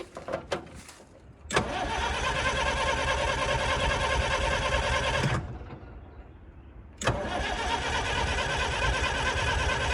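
Starter motor cranking the diesel engine of a Bobcat 743 skid steer in two attempts: one of about four seconds that winds down, then a second starting about seven seconds in. The engine turns over without catching after the glow plugs have been warmed, a hard no-start that later needs starter fluid.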